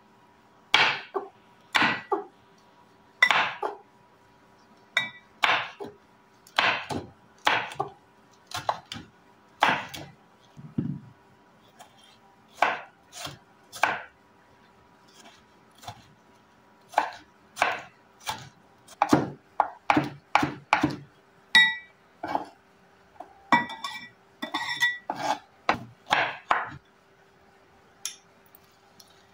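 Chef's knife chopping vegetables (chili, tomato, onion) on a wooden cutting board: separate knocks of the blade on the board, irregular and roughly one a second, some bunched closer together. A few strokes carry a short metallic ring.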